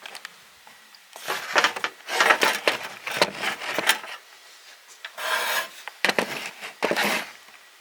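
Rustling and scraping of clothes being pulled out and handled, in bursts: a long stretch of rubbing and scraping over the first few seconds, then two shorter bursts near the end.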